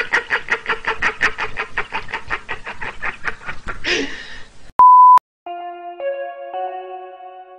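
A man laughing hysterically in rapid, even pulses about seven a second, fading out after about four seconds. A single short high beep follows, then music with held chords.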